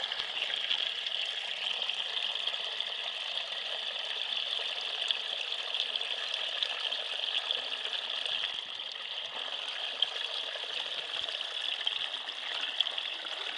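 Surface water on river ice draining steadily down an ice-fishing hole, a continuous trickling, gurgling rush as it is sucked under the ice.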